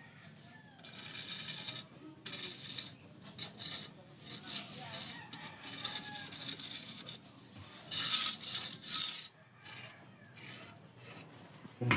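Steel mason's trowel scraping wet concrete mortar along the edge of a cast concrete door jamb, in a run of irregular strokes, loudest about eight seconds in. A short knock comes at the very end.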